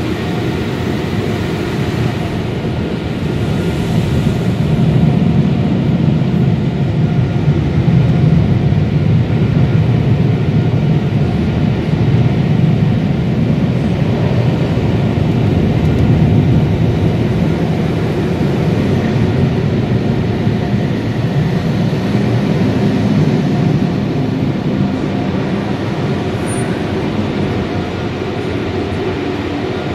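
Automatic tunnel car wash heard from inside the car: rinse water spraying on the glass at first, then the steady loud rush of the exit air blowers drying the car, easing off near the end.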